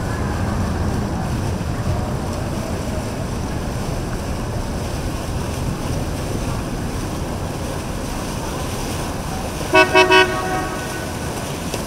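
A horn gives three quick short toots about ten seconds in, over the steady low rumble of boat motors and water.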